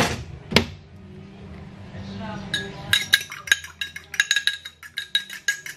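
Metal spoon beating egg in a ceramic bowl: quick clinks of the spoon against the bowl, several a second, starting about three seconds in.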